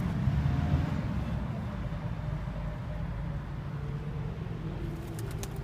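Steady low rumble of road traffic, with a faint engine note from a vehicle passing.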